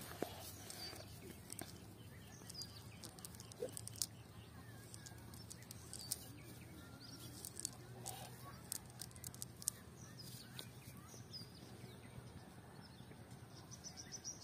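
Faint outdoor ambience: light scattered ticks and rustles of a cast net being picked through by hand, with short bird chirps here and there and a fast run of high chirps near the end.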